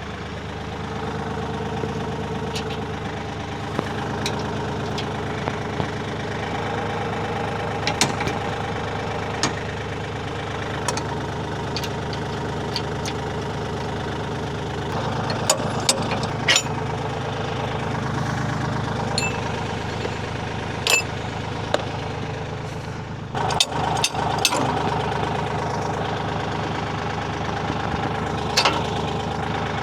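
Kioti 3520 compact tractor's diesel engine running steadily, with occasional sharp clicks and knocks, several bunched around the middle and near the end.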